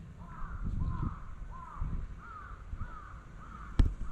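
A crow cawing in a quick run of about seven calls, each rising and falling in pitch. A single sharp click near the end.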